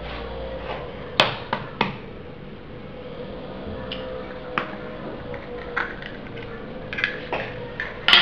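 Sharp clicks and knocks of an egg being handled and tapped against a ceramic mixing bowl, then cracked into flour; the loudest knock comes near the end. A faint steady hum runs underneath.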